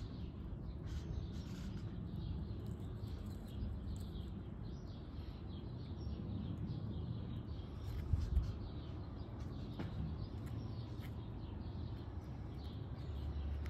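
Faint, scattered bird chirps over a steady low outdoor rumble, with one dull low bump about eight seconds in.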